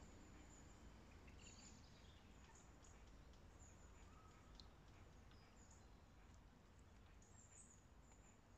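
Near silence: faint outdoor background with a low rumble and scattered faint, high bird chirps.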